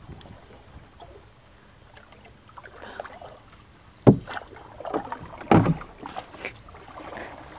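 Canoe being paddled on calm water: faint water sounds from the paddle, with two loud knocks about four and five and a half seconds in.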